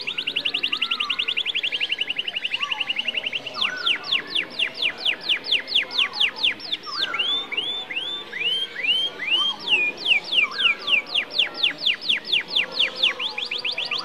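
Canary singing a long, continuous song of repeated notes: a very fast roll at first, then slower repeated down-sweeping notes. About halfway through come a few slower rising-and-falling notes, then more down-sweeps and another fast roll near the end. Fainter, lower chirps sound beneath.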